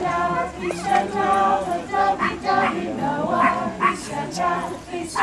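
A group with children's voices singing a song together.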